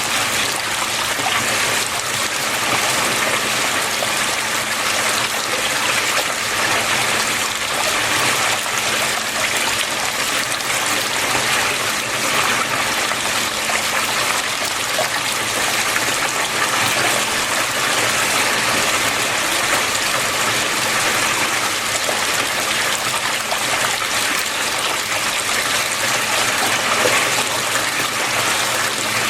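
Water flowing steadily, a continuous trickling and splashing rush.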